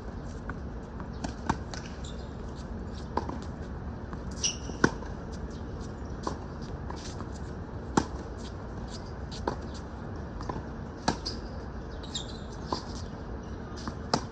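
Tennis rally on a hard court: sharp pops of racket strings striking the ball about every three seconds, with fainter ball bounces between them, over a steady background hiss.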